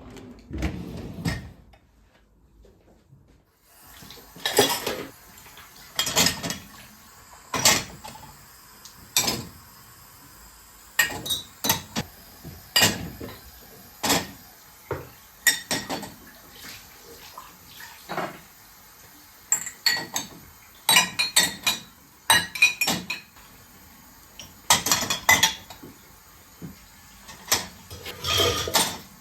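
Dishes and cutlery clinking and knocking as they are handled, a sharp clink every second or two.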